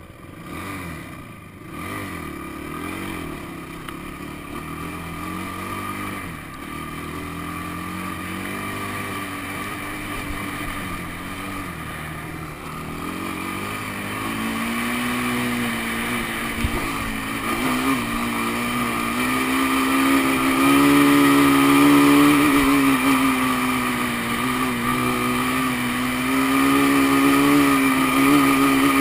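Sport ATV (quad) engine under throttle in sand, its pitch rising and falling with the throttle. It gets louder and holds a higher, steadier note in the second half as the quad climbs a steep dune face.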